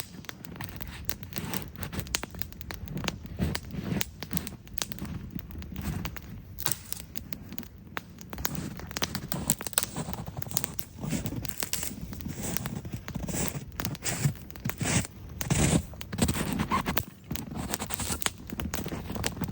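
Small wood campfire crackling, with many irregular pops and snaps.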